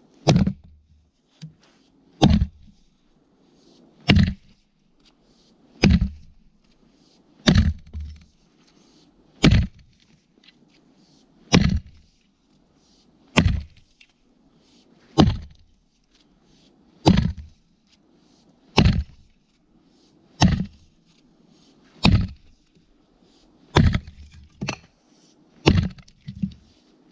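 Old Welland Vale True Temper fire axe on a new 32-inch handle chopping into a frozen spruce log: about fifteen sharp, evenly paced blows, one every two seconds or so.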